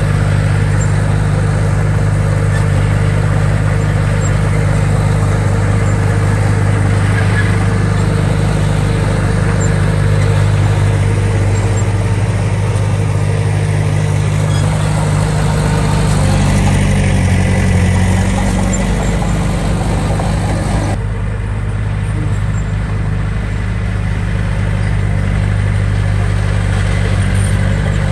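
Heavy construction machine's diesel engine running steadily, loud, with a low, even hum. About 21 seconds in the sound turns abruptly duller, losing its higher noise.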